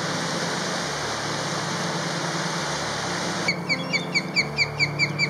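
Rushing river water. Then, from about three and a half seconds in, a fast run of high whistled chirps, each sliding downward, about five a second, typical of an osprey calling.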